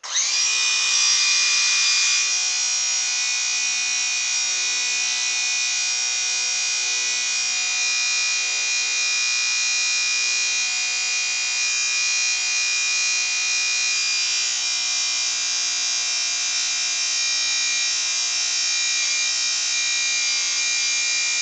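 Small electric motor and propeller of a 1988 Nikko RC Cessna model plane starting up abruptly and running at full power with a steady high whine, a little louder for the first two seconds. It is powered by two 3.7-volt LiPo cells in parallel, below the 4.8-volt NiCad pack it was built for.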